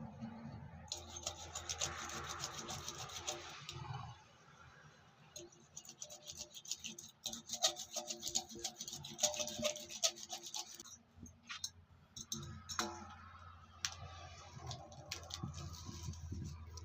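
Rapid, repeated scraping or rasping on rubber in two bouts of a few seconds each, with scattered clicks and a low steady hum underneath: hand work on the truck tyre during a tubeless puncture repair.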